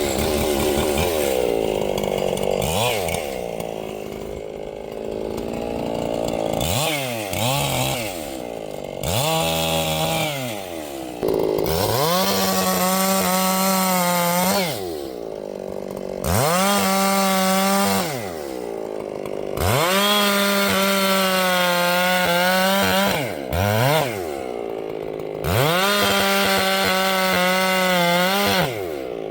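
Ported Echo 7310 two-stroke chainsaw revved up and held at full throttle for a few seconds at a time, again and again, dropping back to idle between the runs, with a few short blips of the throttle.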